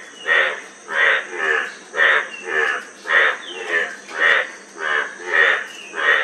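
Frogs calling in a steady rhythm, about two short croaks a second, each croak rough and pulsed, over a faint steady high-pitched drone.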